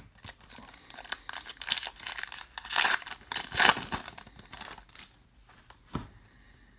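Plastic trading-card pack wrapper torn open along its crimped seal and crinkled by hand, loudest about three seconds in.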